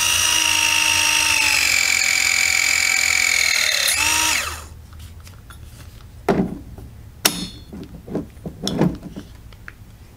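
Milwaukee M12 press tool's motor and hydraulic pump running through a press cycle on a 3/4-inch copper fitting. It makes a steady whine that drops slightly in pitch as the jaws close under load, rises briefly, then cuts off about four and a half seconds in. A few clicks and knocks of handling follow.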